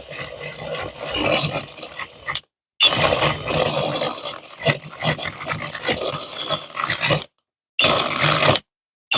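Cordless 18-volt Makita drill running a diamond hole bit that grinds into porcelain tile, a rough, gritty grinding noise. It stops and starts abruptly several times.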